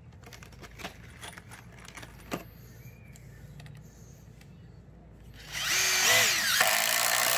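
Makita cordless impact driver hammering as it drives in a fastener. It starts suddenly about five and a half seconds in and runs loud to the end, after a few seconds of light clicks and handling.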